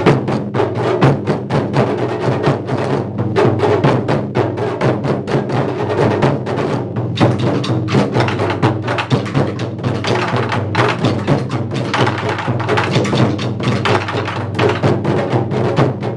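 Taiko ensemble playing nagado-daiko (barrel drums) with bachi sticks: dense, rapid drum strokes from several drummers at once, continuing without a break.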